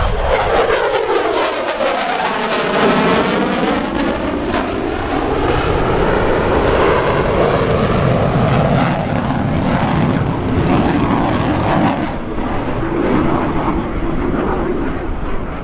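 US Navy F/A-18F Super Hornet's twin jet engines during a demonstration pass. In the first four seconds the jet noise sweeps down and back up in a whooshing, phasing way as the jet goes by. It then settles into a steady, crackling jet noise as the jet pulls away.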